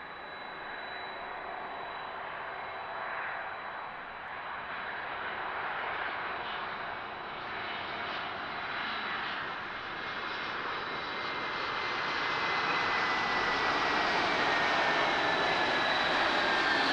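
Airbus A321neo's Pratt & Whitney PW1100G geared turbofan engines during landing and rollout, growing steadily louder as the jet nears. Near the end an engine whine slowly falls in pitch as the aircraft rolls past.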